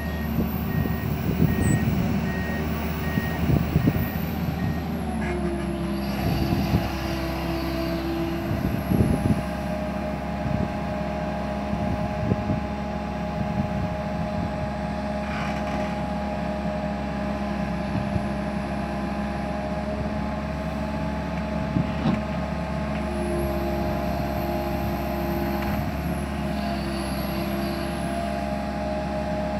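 Komatsu PC160 hydraulic excavator's diesel engine running steadily under load, with a higher hydraulic whine coming in twice for a few seconds as the boom and bucket work. A few knocks sound in the first several seconds.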